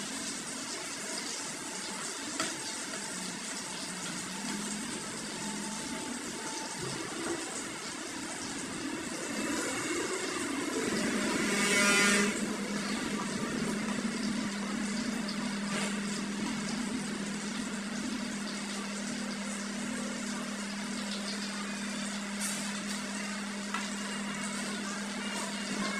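Food frying in a pan on a gas stove, with a steady sizzle that swells to a loud surge about twelve seconds in. A steady low hum starts shortly before the surge and carries on beneath the sizzle.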